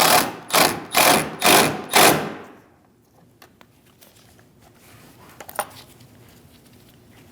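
Cordless drill-driver with a T25 bit run in about five short trigger pulses, roughly two a second, snugging down the door-handle retaining screw. A small click about five and a half seconds in.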